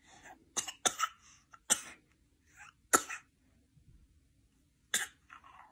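A baby making about six short, sharp bursts of breath, like small coughs or sneezes, spaced unevenly with soft breathy sounds between.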